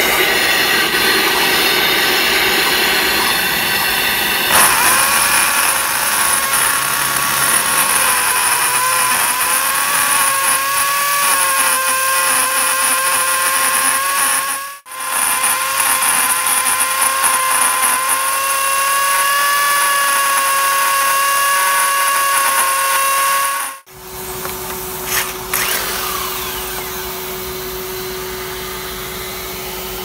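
AGP DM52 diamond core drill dry-drilling into brick with a diamond core bit: the motor runs under load with a whine whose pitch wavers slightly as the bit cuts, over the rush of the attached dust-extraction vacuum. The sound breaks off abruptly twice; after the second break, for the last several seconds, there is a steadier, quieter hum with hiss, the extraction vacuum running.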